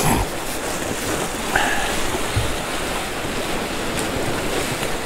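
Sea washing against the rocks with wind, a steady rushing noise.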